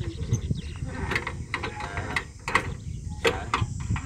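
Single-cylinder diesel engine of a two-wheel walking tractor running with a low, continuous rumble, over which come sharp, irregular knocks.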